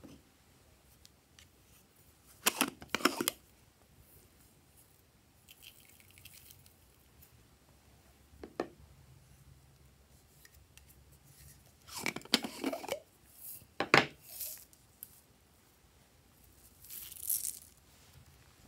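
Several short bursts of plastic handling and small beads and sequins being tipped onto a tray of slime, with quiet gaps between.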